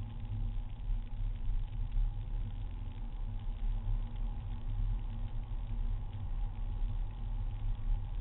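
SEAT Leon diesel engine and road noise heard inside the cabin while cruising: a steady low rumble with a faint hum and no marked revving.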